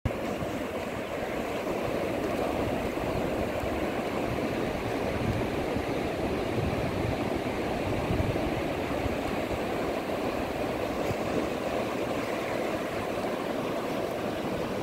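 Sea surf washing in over a wide, flat, shallow beach: a steady, unbroken rushing noise with a low rumble underneath.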